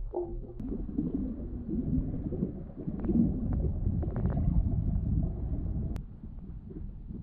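Muffled underwater rumble of water moving over a GoPro camera's housing as a freediver swims, with a few faint clicks. It drops away about six seconds in.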